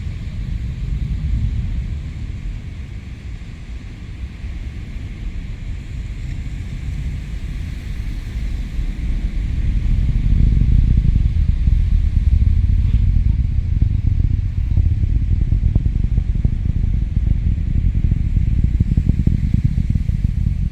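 Distant rocket launch: a deep, crackling rumble that swells louder about halfway through.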